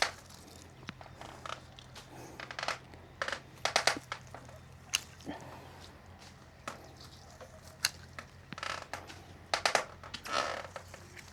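Hand pruning shears snipping rose stems, with the rustle and crunch of leaves and stems being handled between cuts: a dozen or so sharp clicks at irregular intervals.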